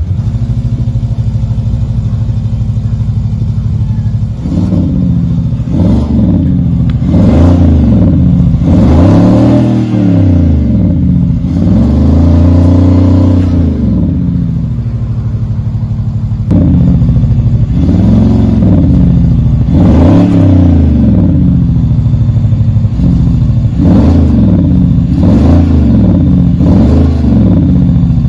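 Volvo XC60 T8's four-cylinder engine, heard through a HEICO SPORTIV Selected Sound exhaust system whose sound actuator gives it a deep V8-like note. It idles steadily, then is revved repeatedly while standing still: a run of short throttle blips and a few longer revs, each rising and falling in pitch, with a short steady idle midway.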